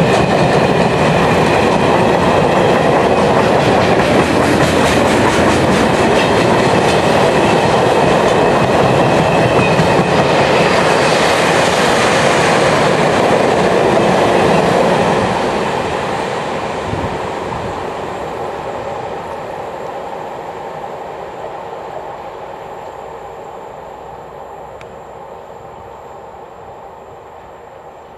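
Long freight train of box wagons and tank cars rolling past at close range, its wheels running along the track. It is loud and steady, then fades away from about fifteen seconds in as the end of the train passes and pulls away.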